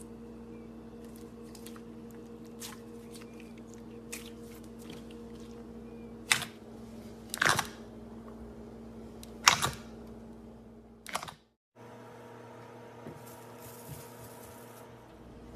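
Slime being pressed and worked by hand, giving scattered small sticky clicks and crackles, with about four louder pops in the middle. A steady low electrical hum runs underneath. The sound drops out briefly about two-thirds of the way through, then resumes with a slightly different hum.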